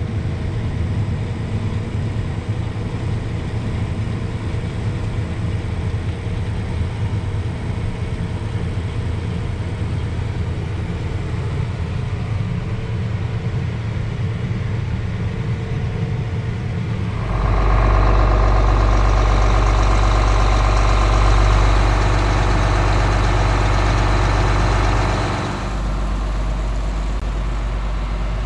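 Heavy engine running steadily. About two-thirds of the way through, a louder, fuller mechanical noise comes in for about eight seconds, then drops back to the steady engine.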